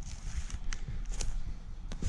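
Footsteps through leaves and brush on the ground, with a few sharp snaps about half a second apart over a low rumble.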